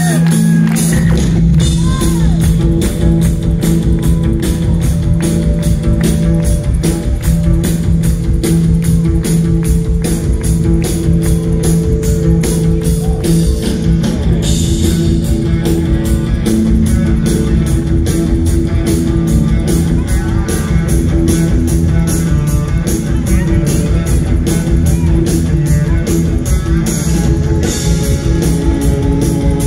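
Live rock band playing loudly: electric guitar, bass guitar, drums and keyboards over a steady, driving beat.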